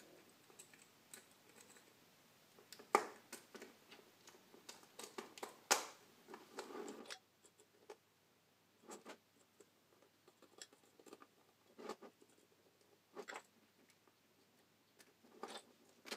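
Hand assembly of a small 3D-printed PLA engine: plastic parts clicking and knocking together, the loudest knocks about three and six seconds in, then scattered light clicks as a small hex screwdriver turns screws into the block.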